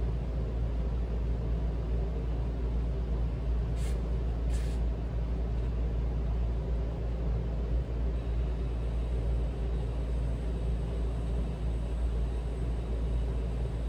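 Steady low hum and rumble through the speakers with no music playing: the turntable is running, but something was left on the cartridge, so the record does not play. Two faint ticks about four seconds in.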